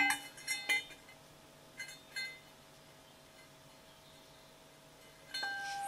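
Steel engine-stand parts being handled: a few sharp metal clinks near the start, two fainter taps around two seconds in, and another clink near the end. Each clink leaves the metal ringing on for a while.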